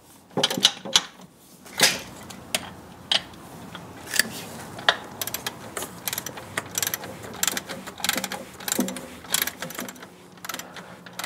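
Hand ratchet clicking as a nut is run down, in quick runs of clicks that come thicker in the second half, with scattered clinks of the steel wrench against the bolt and bracket.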